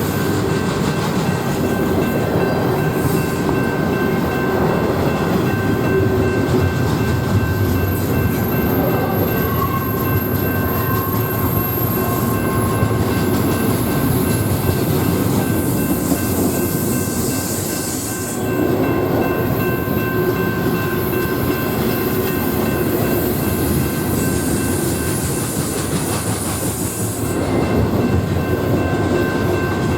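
A train rolling steadily past, a continuous loud rumble of wheels on rail.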